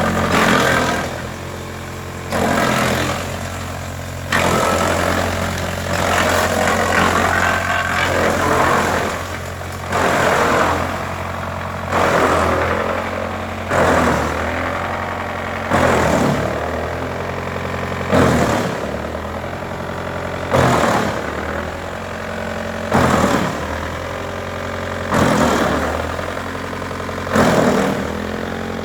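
Wood chipper running with a steady machine hum, broken by loud chipping surges about every two seconds as wood goes through the cutters, one longer surge near the start.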